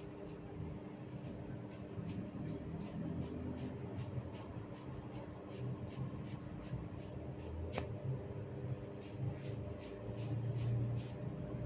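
Hair cracking: locks of hair tugged and twisted close to the scalp, giving a rapid run of short crackling snaps, a few a second, with one sharper click about eight seconds in.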